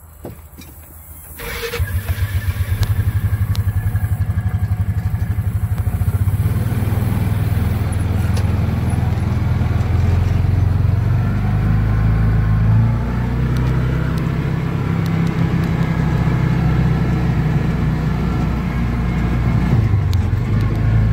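A small utility vehicle's engine starts about a second and a half in with a low, evenly pulsing note, then keeps running steadily as the vehicle drives across a grass field.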